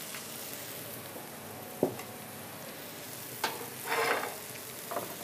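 Diced porcini mushrooms sizzling in hot oil in a frying pan, a steady hiss. A short knock of the pan a little under two seconds in, and a brief louder swell of sizzle around four seconds in as the pan is handled.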